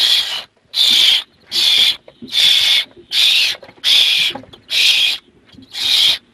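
Barn owl nestlings giving their rasping, hissing begging screeches: about eight loud half-second hisses, repeated in a steady rhythm roughly every three-quarters of a second.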